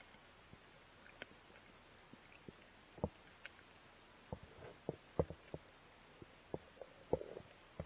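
Scattered, irregular muffled knocks and clicks underwater, picked up through an action camera's waterproof housing, as a spearfisher's gloved hand handles a fish on a wire stringer. The sound is faint apart from a handful of sharper knocks, the loudest about five seconds in.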